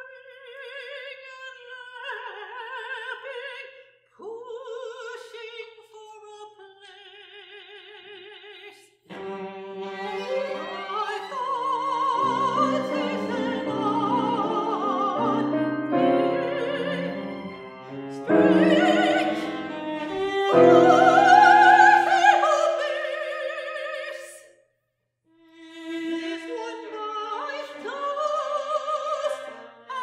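A soprano sings with wide vibrato in a contemporary classical chamber quartet of voice, violin, cello and piano. The first few seconds are sparse, with single held high lines. From about nine seconds in the full ensemble plays, growing loudest a little past the middle, then it breaks off briefly before the music resumes.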